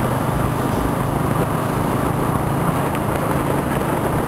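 Motor scooter running steadily at riding speed in traffic, its engine hum under a constant rush of road and wind noise.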